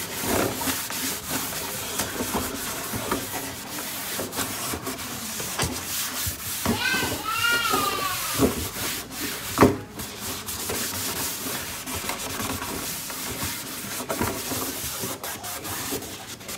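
A cloth being rubbed and buffed over plastic engine-bay covers coated in silicone spray, making a continuous scratchy wiping sound. About seven seconds in there is a brief wavering squeal, and a sharp knock comes a couple of seconds later.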